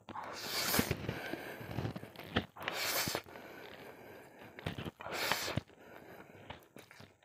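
A person slurping instant noodles off a fork in three long draws, a couple of seconds apart, with chewing between them.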